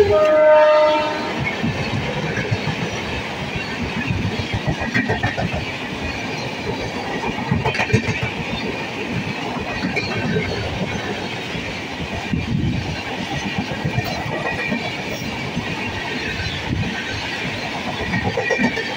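Passenger coaches of an Indian express train running past close by at speed: a steady rolling rumble and rattle, with the wheels clacking irregularly over the rail joints. A pitched tone fades out in the first second or so.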